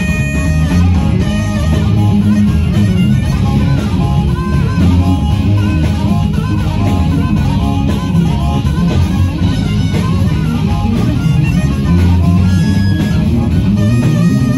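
Live rock band music with guitar, bass and drums, played loud and steady.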